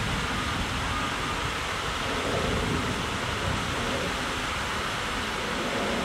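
Steady rushing of running stream water, with low wind rumble buffeting the microphone.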